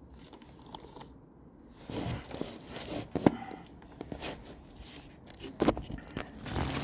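Tool-handling noise: irregular knocks, clicks and scrapes as a cordless drill fitted with a flexible shaft extension is picked up and set onto a screw on the bike frame, with sharp knocks about three seconds in and again near six.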